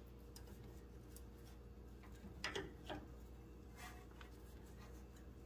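Faint metallic clicks and scrapes of side cutters handling a cotter pin at a tie rod end, with two sharper ticks about two and a half seconds in, over a low steady hum.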